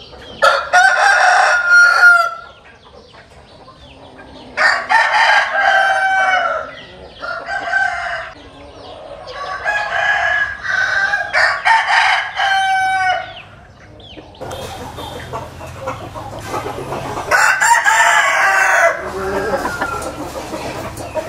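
Several roosters crowing one after another, about five or six crows of a second or two each, some overlapping, with hens clucking between them.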